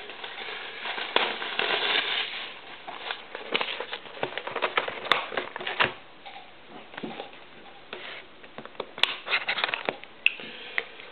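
Plastic shrink wrap being cut and torn off a sealed box of trading cards, crinkling and crackling irregularly, busiest in the first half.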